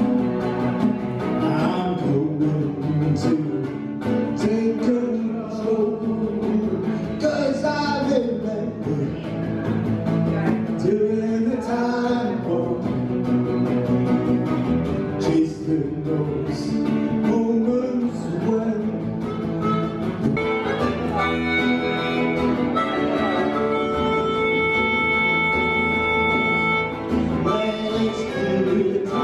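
Small live band playing an instrumental passage on acoustic and electric guitar; about two-thirds of the way in, a harmonica comes in with long held notes.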